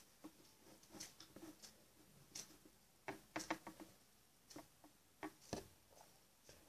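Faint, irregular light clicks and rustles, about a dozen, from hands tightly wrapping a Barbie doll's hair and handling the plastic doll.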